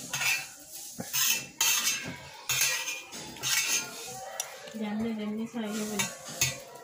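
Metal spoon scraping and clinking against a wide brass plate while eating, in short irregular strokes about every half second.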